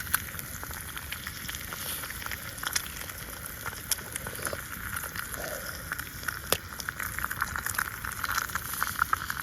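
Bacon sizzling and spitting in a frying pan: a steady hiss with sharp pops every second or two, the crackling growing thicker and faster near the end.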